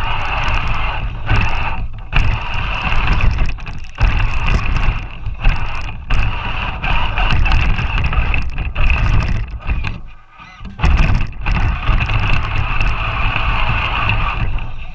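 Onboard sound of a large battery-powered RC 4x4 truck driving through snow: its electric motor and drivetrain whine over a rough chassis and tyre rumble. The sound drops out briefly a few times, longest about ten seconds in.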